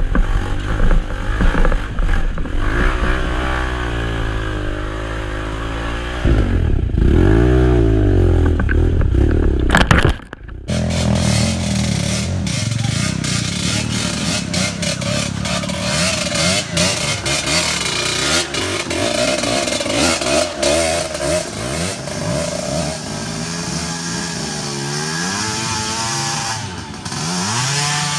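Motorcycle engine revving, the pitch rising and falling repeatedly as the throttle is worked. About ten seconds in the sound breaks off abruptly, then more engine revving follows.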